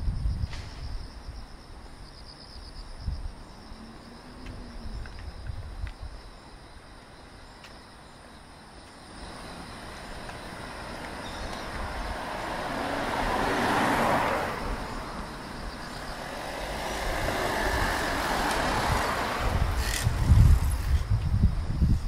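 Cars passing close on an asphalt street, their tyre and engine noise swelling and fading. One passes a little past the middle, and a second swell follows, ending in a low rumble as a van comes alongside near the end.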